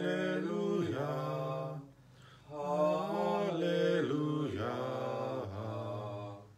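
A solo cantor chanting the Gospel acclamation at Mass in two long phrases, with a short breath about two seconds in.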